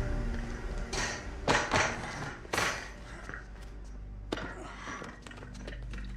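A few sharp knocks and thuds over a low steady hum, the loudest about two and a half seconds in.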